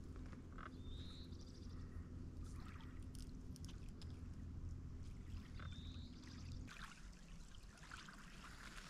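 A steady low hum with a fixed pitch that cuts off about seven seconds in, with a short high chirp twice, about a second in and about six seconds in, like a small bird.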